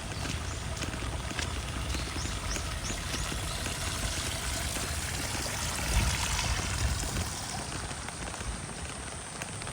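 Steady rain falling, with water pouring and trickling. A quick run of about four high chirps comes about two seconds in, and a dull thump about six seconds in.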